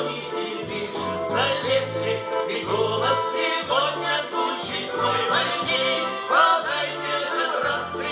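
Russian garmon (button accordion) playing a folk tune with a steady alternating bass, while a folk choir sings along.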